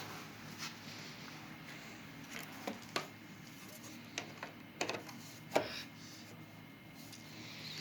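Scattered light clicks and knocks, several in the middle seconds, over faint background noise.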